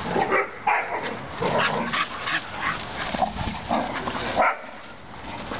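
A pack of dogs, a Standard Schnauzer, a black Lab and a Bull Terrier, barking and yipping as they wrestle in rough play, short calls coming several a second with a brief lull near the end.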